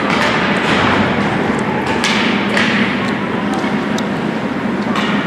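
Ice hockey play in a rink: several sharp knocks and thuds of sticks and puck against the boards, over a steady murmur of crowd noise.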